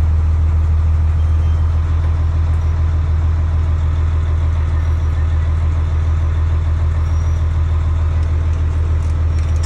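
Fire truck engine idling steadily with a deep, even rumble.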